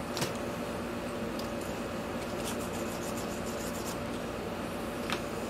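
Faint, sharp clicks and ticks of small parts being handled at a workbench over a steady background hum; a cluster of light ticks falls near the middle.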